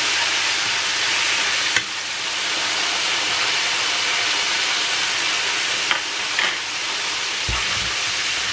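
Coated verdinhos (blue whiting) deep-frying in hot oil in a frying pan: a steady, dense sizzle. A few sharp clicks of metal tongs against the pan come about two seconds in and twice around six seconds.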